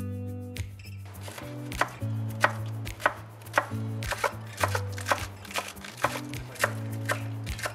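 Kitchen knife chopping green onions on a wooden cutting board, even strokes about twice a second starting a couple of seconds in, over background music.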